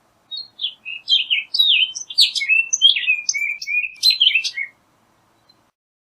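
Orchard oriole singing one rapid, jumbled song of varied whistled notes, rising and falling quickly, lasting about four and a half seconds.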